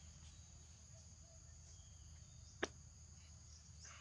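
Faint outdoor quiet with a steady high insect drone, crickets or similar insects, and one sharp click about two and a half seconds in.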